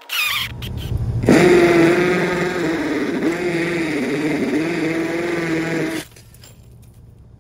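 Electric drill running a concrete core hole saw that grinds through a stucco-faced block wall. The motor's pitch wavers and dips as it loads up in the cut, and it stops about six seconds in.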